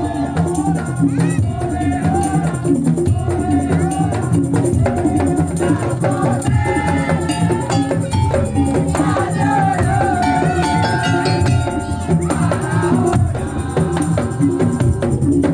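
Madurese tongtong (daul) music: an ensemble beating drums and percussion in a dense, steady rhythm with shakers, under a wavering, pitch-bending melody line.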